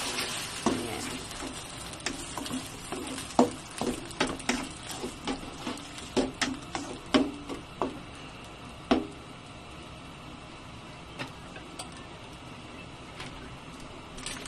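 Spatula stirring a thick sauce in a non-stick wok, knocking and scraping against the pan many times through the first nine seconds. After that a steady sizzle, with a couple of light taps.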